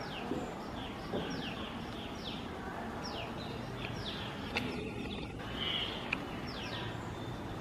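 Bird calls: short, high notes that slide downward, repeated irregularly throughout, over a steady background hiss, with a couple of sharp ticks in the second half.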